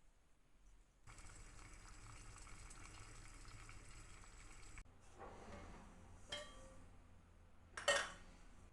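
Kitchen sounds: a steady rush of running or pouring water for about four seconds, then a few clinks of dishes, the loudest near the end.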